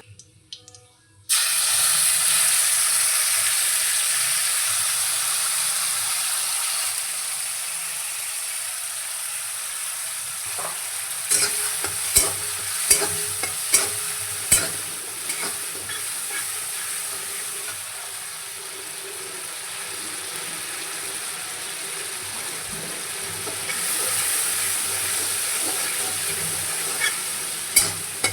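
Food sizzling loudly in hot oil in a pan. The sizzle starts suddenly just over a second in, as the food goes into the pan, and a utensil knocks against the pan several times during stirring.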